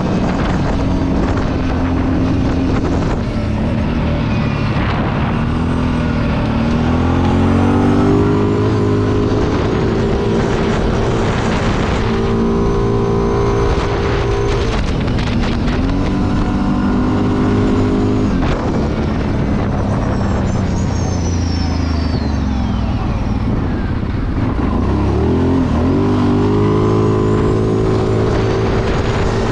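Kawasaki Brute Force 750 ATV's V-twin engine pulling hard on a top-speed run, its CVT fitted with a Dalton clutch kit. The engine pitch sags and climbs back up three times as the quad accelerates, over constant rushing road and wind noise.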